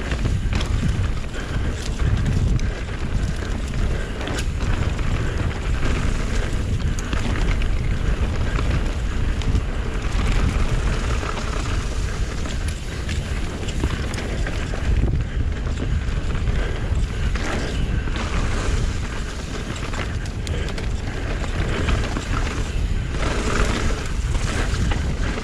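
Wind buffeting an action camera's microphone while a mountain bike rides down a trail, with frequent short knocks and rattles from the bike over rough ground.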